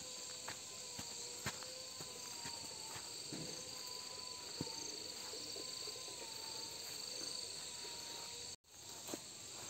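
Insects droning steadily in a high-pitched chorus, with a faint wavering hum beneath it. Scattered soft footsteps of people walking along a grassy path, and a brief dropout near the end.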